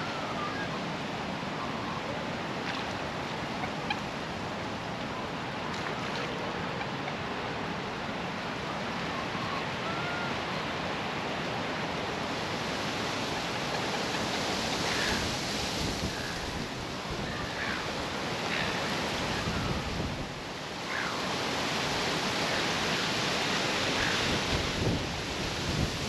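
Strong wind rushing through trees and across the microphone, swelling in gusts about halfway through and again near the end, with a few faint, short bird calls.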